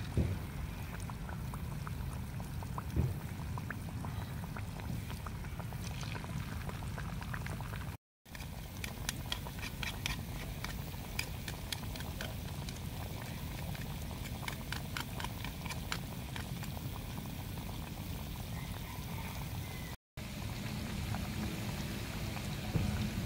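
Hot oil sizzling and crackling around battered fritters deep-frying in a wok, a steady hiss with many small pops. It breaks off briefly twice, about a third of the way in and near the end.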